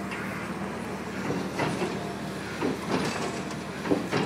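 Hydraulic excavator demolishing a concrete overpass: its engine runs with a steady hum under irregular crunching knocks of concrete and steel being broken, with a pair of sharp knocks near the end that are the loudest.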